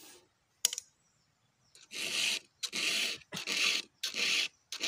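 Round file drawn by hand across the cutters of a chainsaw chain, sharpening it. After a light click about half a second in, the rasping strokes start about two seconds in and repeat evenly, five in all, each about half a second long.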